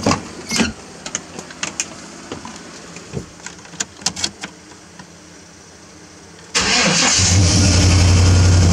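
A few clicks and knocks from getting into the truck cab, then about six and a half seconds in a Chevrolet 350 V8 with throttle-body injection starts suddenly and settles into a steady idle. It starts and keeps running now that its loose fuel lines have been tightened.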